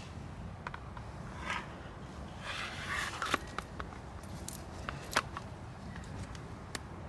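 Machete sheath being handled: a molded sheath and its strap rustle and scrape against the blade and gloves, with scattered sharp clicks, the loudest about three and five seconds in, over a low steady rumble.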